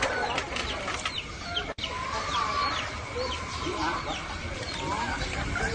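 Domestic chickens clucking, with many short high chirping calls in quick succession.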